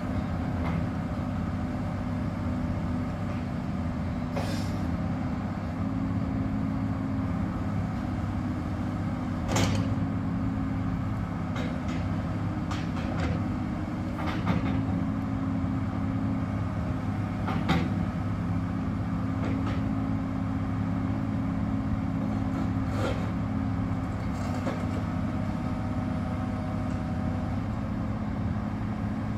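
Kobelco SK235SRLC excavator's 5.8 L six-cylinder diesel running steadily under hydraulic load as the boom and bucket are worked. Half a dozen sharp metallic knocks come at intervals.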